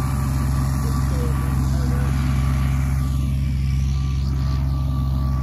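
Tractor engine running steadily while driving a bush hog (rotary cutter) mowing pasture grass, a constant low drone.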